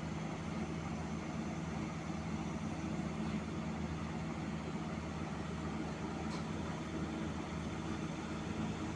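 Heavy diesel engine running steadily at a constant pace, from the machinery pulling the slipped excavator back.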